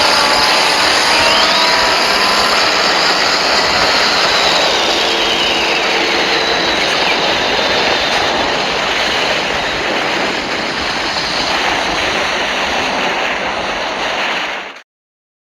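Custom Mechagodzilla sound effect: a loud, dense, continuous rushing noise with faint gliding tones inside it, cutting off abruptly near the end.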